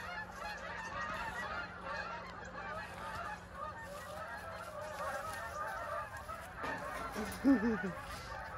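A flock of geese honking continuously, many birds calling over one another. About seven and a half seconds in, one louder, lower call falls in pitch.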